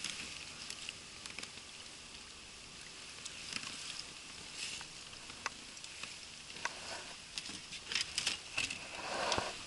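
Scattered light clicks and rustles of a landing net and fishing tackle being handled in an inflatable boat, with a louder rustle about nine seconds in.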